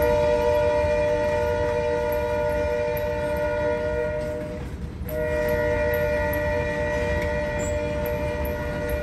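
Multi-tone air horn of the lead locomotive, an LSRC SD40-2, sounding two long blasts with a brief break about halfway. Under it, the low rumble and wheel noise of freight cars rolling past.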